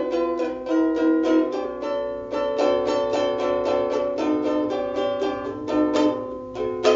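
Ukulele strummed in a quick, even rhythm, chords ringing with no voice: an instrumental break between sung verses.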